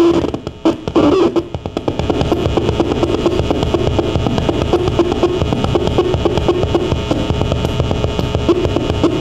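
Live noise music: a loud droning tone chopped by abrupt cut-outs gives way, about two seconds in, to a dense, rapid, even pulsing texture of distorted, effects-laden sound.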